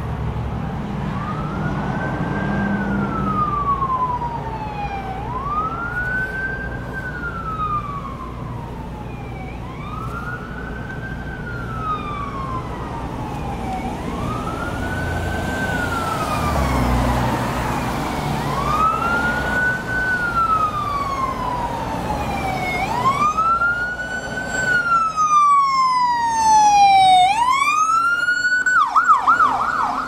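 Ambulance siren wailing: each cycle rises quickly and falls slowly, repeating about every four and a half seconds, over a low rumble. It grows louder, and near the end it switches to a fast yelp.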